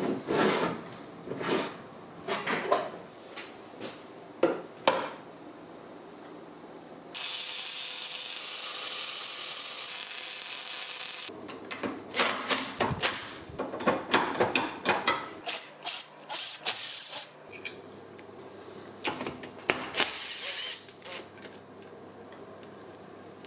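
Cordless drill-driver running steadily for about four seconds, unscrewing bolts from an air-conditioning compressor. Metal parts clank and knock as they are handled and set down on a steel bench before and after.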